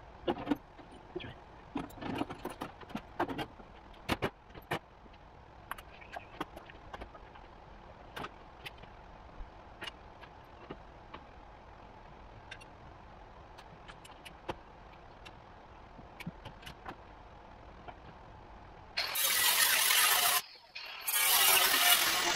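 Clinks and knocks of steel parts being handled, then near the end two loud bursts of an angle grinder cutting sheet metal, the second longer than the first.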